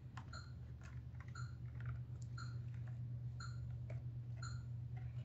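Light clicks of a small screwdriver and fingers working on a circuit board and plastic casing, over a steady low hum. A short electronic chirp repeats about once a second.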